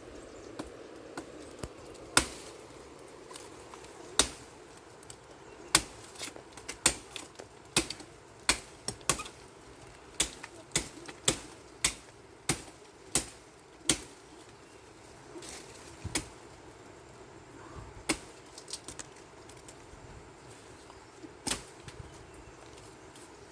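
A series of sharp knocks or strikes, about twenty in all. They come sparsely at first, then quicken to one or two a second through the middle, then thin out again.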